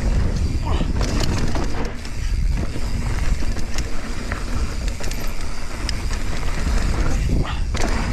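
A mountain bike riding down a dusty dirt trail: wind buffeting the microphone as a low rumble over the hiss of tyres on dirt, with scattered knocks and rattles from the bike over bumps.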